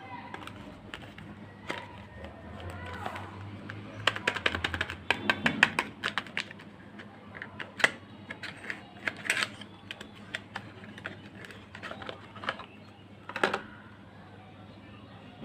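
Soap packaging handled and opened by hand: a run of small crackles and clicks, densest a few seconds in, then scattered, with a couple of sharper snaps near the end.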